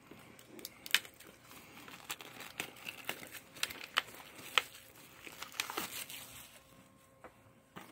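Plastic shrink-wrap being picked at and peeled off a sealed Blu-ray steelbook case: crinkling with sharp crackles, dying down about six and a half seconds in.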